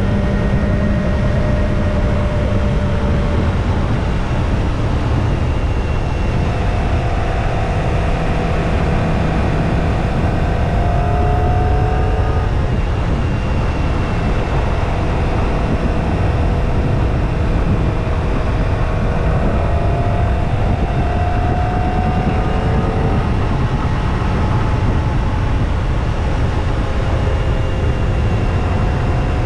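Kawasaki Ninja ZX-25R's 250 cc inline-four on its stock exhaust, running steadily while riding, its engine note rising and falling gently a few times, under heavy wind noise on the microphone.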